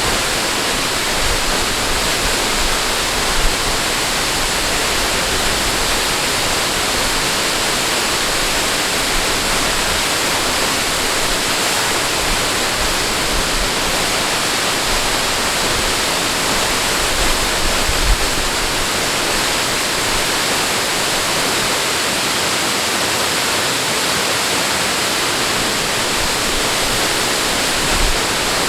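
Steady rush of flowing water, an even unbroken hiss, with a few brief low bumps.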